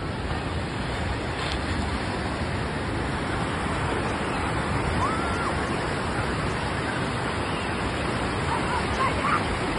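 Rough Atlantic surf breaking offshore and washing up the beach in a steady, continuous rush.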